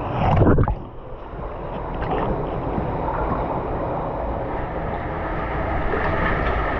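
Water sloshing and splashing as a person wades into deep water in a flooded cave passage, with a louder burst in the first second.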